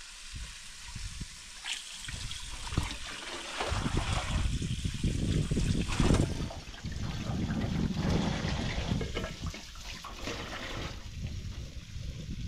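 Water from a tap running and splashing into a stainless-steel sink and over a metal tray of raw meat being rinsed, louder through the middle and easing near the end. A couple of light knocks from handling come in the first few seconds.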